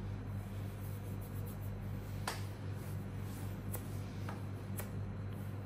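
Electric hair clipper buzzing steadily, with a few faint ticks about two, three and a half, and five seconds in.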